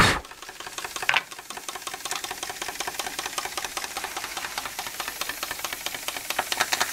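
Old Bing vertical toy steam engine running fast, its piston, exhaust and flywheel making a rapid, even ticking chuff. A knock as its burner is set down on the table at the start, and another about a second in.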